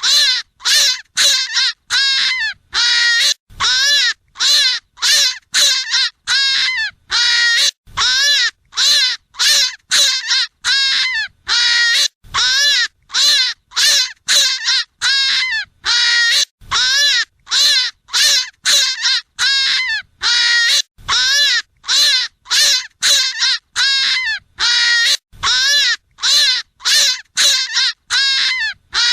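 European hare's distress screams, a rapid series of harsh, loud calls about one and a half a second, each rising and falling in pitch.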